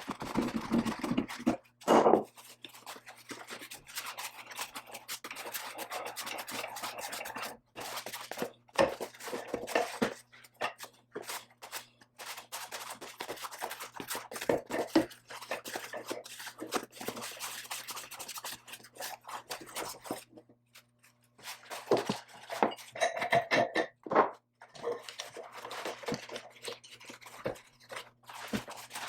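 Metal parts being handled, with irregular scraping, clinking and knocks, over a steady low electrical hum.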